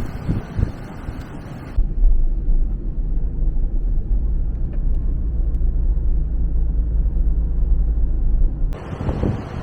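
Typhoon-force wind blowing hard and buffeting the microphone. About two seconds in, the sound switches abruptly to a deep, steady rumble with almost no high sound, and the gusting wind returns near the end.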